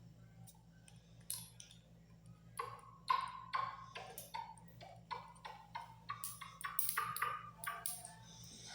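A run of light, irregular taps or clicks, many with a short pitched ping, coming thick and fast from about a second in, over a steady low hum.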